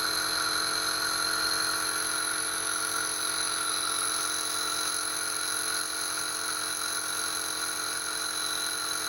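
Omron C102 Total compressor nebulizer running with its nasal shower activated by the held button: a steady hiss of air and spray over the compressor's hum.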